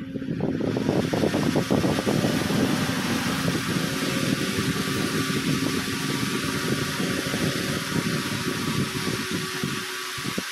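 Small DC motor spinning a red plastic fan propeller at speed, whirring with a steady rush of air.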